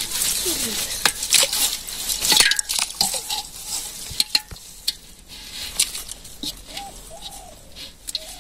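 Many small live fish wriggling and flapping in shallow water in a pot, giving a wet crackling patter of small splashes and clicks. The clicks are thick in the first few seconds and thin out after. A bird coos a few times near the end.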